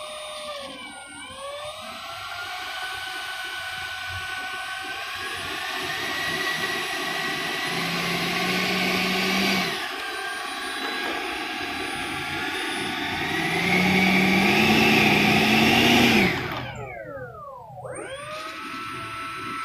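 70mm 12-blade electric ducted fan of a Super Habu foam RC jet, running on a 3S LiPo and whining as it is throttled up. The pitch climbs, drops back about halfway through, then climbs again to its loudest. Near the end the throttle is cut and the whine falls away as the fan spools down, settling to a low idle.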